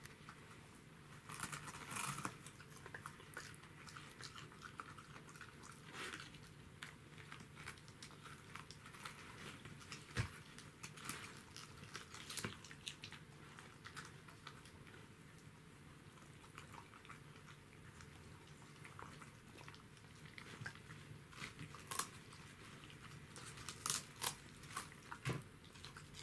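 Dogs, one of them a Pembroke Welsh corgi, chewing and biting raw cabbage leaves: irregular crisp crunches, some louder than others.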